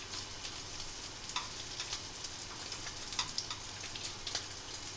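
Cubes of fatty pancetta frying in olive oil in a stainless steel pan: a steady sizzle with scattered sharp crackles as the fat slowly renders out.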